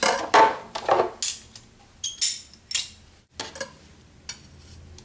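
Kitchen knife clacking on a wooden cutting board as a garlic clove is cut in half, then a metal garlic press being handled and loaded. Several sharp knocks and clicks over the first three seconds, then only a few light ticks.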